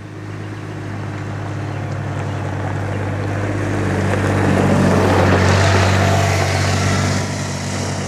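A motor vehicle's engine running at a steady low speed as it comes close, growing louder to its loudest about five seconds in, then easing off.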